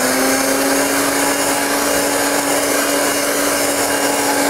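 Electric kitchen mixer motor running steadily at full speed, with a constant whirring pitch, as it blends pumpkin cheesecake batter after the whey protein powder has been added.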